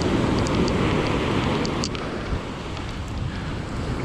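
Ocean surf washing on the beach with wind buffeting the microphone, a steady roar that eases off a little about two seconds in, with a few faint ticks.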